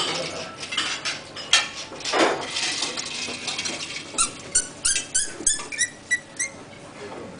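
Corkscrew worked into and drawing the cork from a wine bottle: small clicks and scrapes of metal and glass, then from about halfway a quick series of short, high squeaks from the cork, about four a second.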